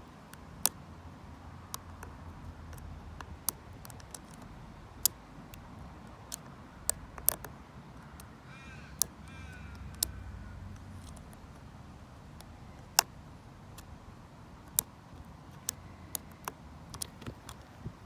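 Sharp, irregular metal clicks from a short hook pick and tension wrench working the pin tumblers of a vintage Lockwood 570 oval mortise lock, over a low wind rumble on a covered microphone. About halfway through, a bird caws in the background.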